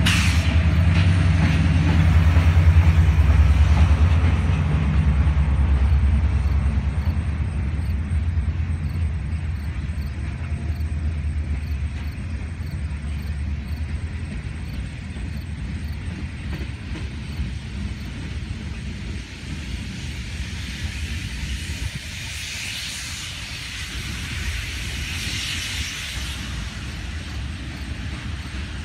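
A freight train passing close: the diesel locomotive's engine hum is loudest in the first few seconds, then fades into the steady rolling noise of tank cars' wheels on the rails, with two brief hissier swells near the end.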